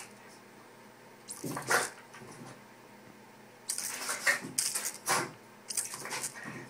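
A spray bottle squirts in short hissing bursts at a dog, and the dog snaps and bites at the water. There is one burst about a second and a half in, then a quick run of bursts in the second half.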